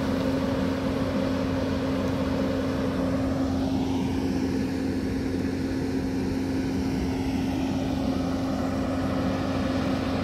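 Camera drone's propellers humming steadily at one fixed pitch.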